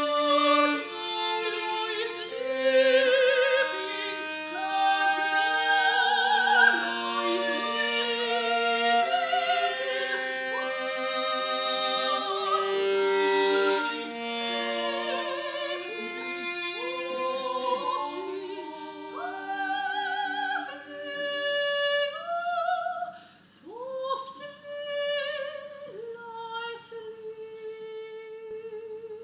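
Operatic singing by several voices in overlapping lines with vibrato. Near the end it thins to one held note.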